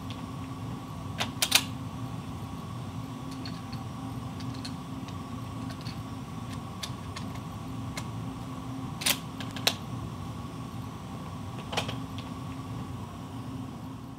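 Metallic clicks of a Model 1917 Enfield bolt-action rifle's action being worked by hand: a few sharp clicks, the loudest about a second and a half in and a pair a little past the middle, over a steady room hum.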